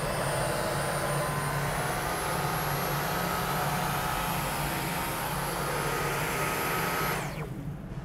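Dyson V15 Detect cordless stick vacuum running with its floor head, motor whining steadily over a rush of suction while picking up hair from a hard floor. The whine steps up slightly in pitch about two seconds in. Near the end the vacuum is switched off and the whine falls away as the motor spins down.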